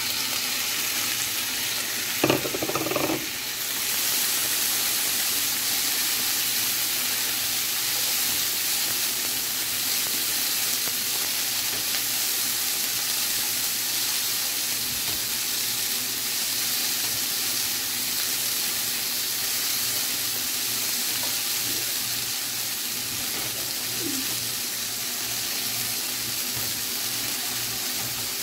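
Sausage, onions and freshly added diced tomatoes and celery sizzling in a hot non-stick frying pan, stirred with a plastic spatula. The sizzle swells as the wet vegetables hit the pan, with a brief knock about two seconds in.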